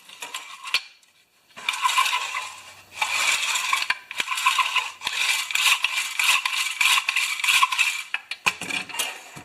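Metal parts of a Honda lawn mower's recoil starter rattling and scraping while being worked by hand, with scattered clicks. The rattling runs in a dense stretch from about a second and a half in to about eight seconds in, easing off briefly near three seconds.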